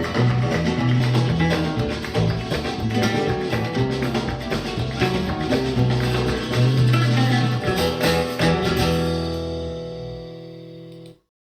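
Flamenco-style guitar music with a strong bass line, played through an active studio monitor loudspeaker and recorded in the room. It fades out over the last couple of seconds and stops just before the end.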